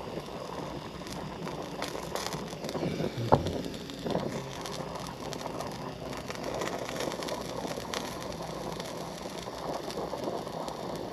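Brazing torch flame hissing steadily while it heats a copper distributor tube on an air handler coil to braze a refrigerant leak. A few small clicks, with one sharper tick about three seconds in.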